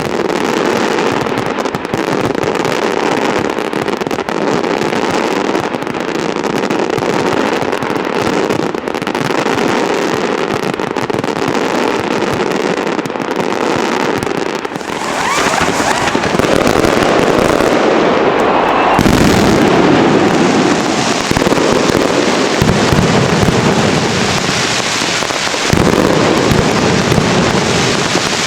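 Fireworks going off in a dense, continuous barrage of crackles and bangs, getting louder a little past halfway through.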